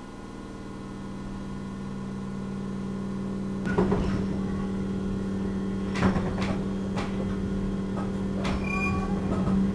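JR Central 211 series EMU motor car with MT61 traction motors accelerating: a steady motor hum grows louder, and from about four seconds in the wheels clack sharply over rail joints several times over a heavier running rumble. This car is known for an abnormal motor noise.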